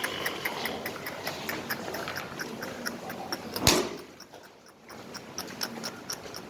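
Rapid, even ticking, about four to five ticks a second, with one loud sharp knock a little past the middle.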